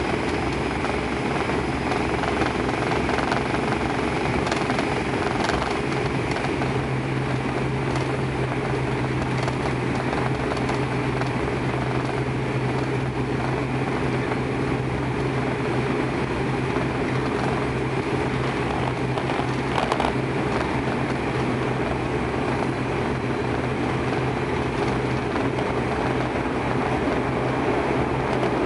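ATR 72-600's twin Pratt & Whitney PW127M turboprops at takeoff power during the takeoff roll, a loud, steady propeller and engine drone heard inside the cabin beside the wing. A steady low hum joins about six seconds in.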